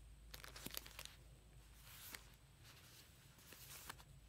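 Faint rustling and crinkling of skeins of yarn, with their paper labels and plastic bags, being handled by hand: a string of soft, irregular crackles over a low steady hum.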